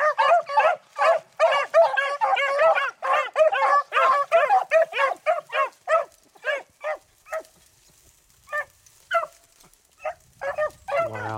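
A pack of beagles baying on a rabbit's trail, many voices overlapping at first, then thinning to scattered single bays with a short lull late on.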